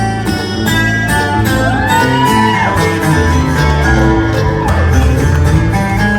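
Live bluegrass band playing: plucked string instruments over a steady bass line, with sliding high notes about two seconds in.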